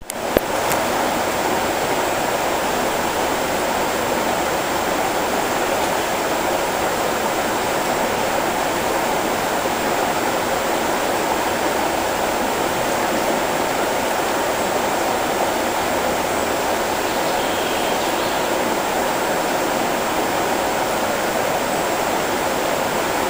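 The Glatt river rushing over shallow rapids: a steady, even noise of fast-flowing water, with a single click just after the start.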